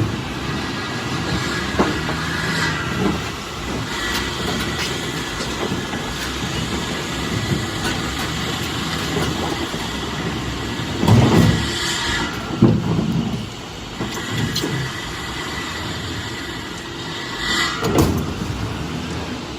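Heavy machinery running steadily, with a few heavy knocks and clunks, louder about halfway through and again near the end.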